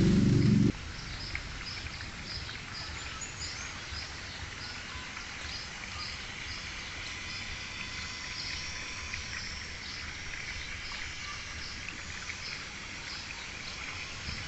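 Outdoor ambience with a short, high chirp repeating about twice a second over a steady hiss. A loud low hum cuts off sharply under a second in.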